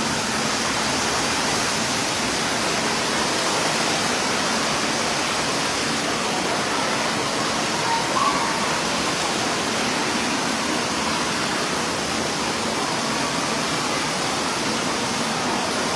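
Steady rush of churning water in an indoor water-park pool.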